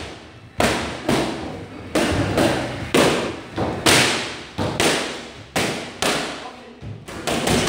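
Boxing gloves smacking into focus mitts, a string of about fifteen punches thrown in quick combinations of two or three, each hit echoing.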